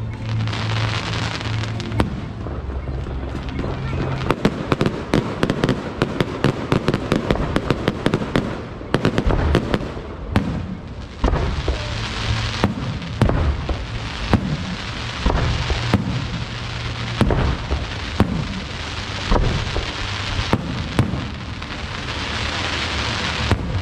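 Aerial firework shells bursting overhead: a dense run of rapid crackling bangs a few seconds in, then separate bangs about every second or so, with crackle and hiss between them.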